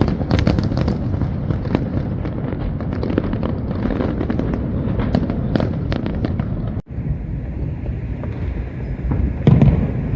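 Fireworks going off: a dense run of crackling bangs and pops over a steady low rumble. It cuts off abruptly about two thirds of the way in, then a steadier rumble follows with one louder burst near the end.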